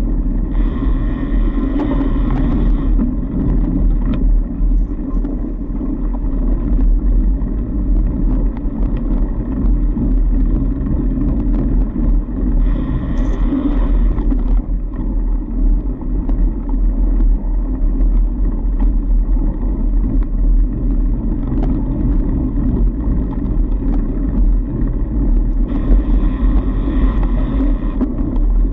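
Fat bike rolling over a packed snow trail: a steady, loud low rumble of tyres and frame vibration on the ride camera. Three times, for two to three seconds each, a higher buzzing sound rises over the rumble.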